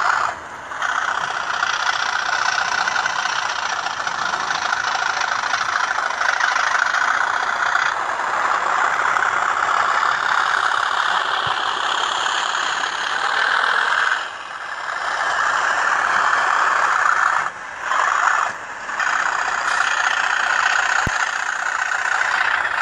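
A Hornby TTS sound decoder in an N gauge Class 37 model plays its recorded Class 37 diesel engine sound through the model's tiny speaker. The engine note runs steadily, thin and without bass, and dips briefly a few times.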